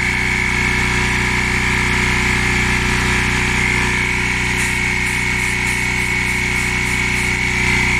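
Air compressor running steadily, its motor and pump filling the tank with a constant hum and whine, while the tank is not building enough pressure.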